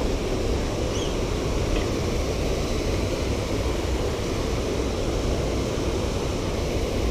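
Steady rushing of water spilling over small stone cascades and a low waterfall: an even, unbroken noise, heaviest in the low range.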